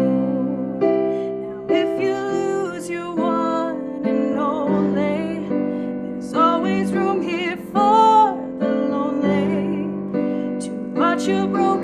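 Piano playing sustained chords while a woman sings long held notes with vibrato over them.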